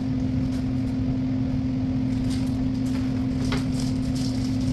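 Steady machine hum holding one constant tone over a low rumble, with a few faint light clicks.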